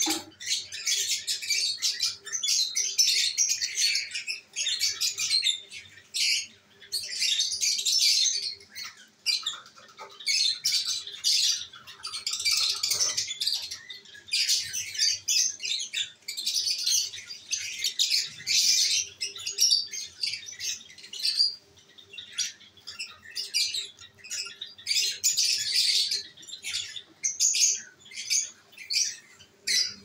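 Lovebirds chattering: a continuous run of high-pitched, squeaky chirps and squawks in quick bouts with brief gaps.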